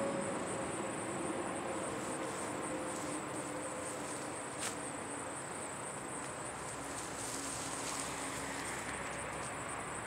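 Crickets chirping in a steady, high-pitched chorus over a faint background rumble, with a single sharp click about halfway through.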